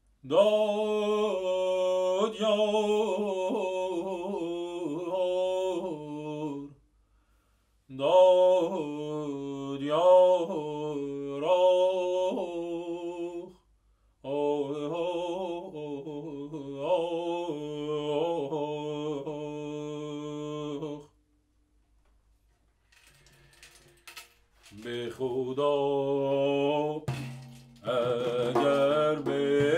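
Male voice singing unaccompanied in the Persian Homayoun mode, in three long phrases of wavering, stepped pitch with short pauses between them. Near the end the voice returns and strokes on a dayereh frame drum join in under it.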